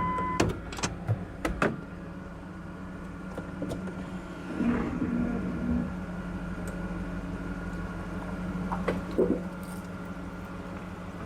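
Dodge Durango engine idling steadily just after being started, on fresh oil from an oil change. A few sharp clicks and knocks come between about half a second and two seconds in.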